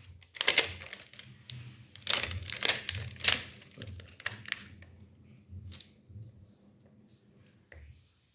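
Packaging crinkling and rustling as it is handled, in irregular bursts that are loudest in the first half and then die down to a few faint clicks.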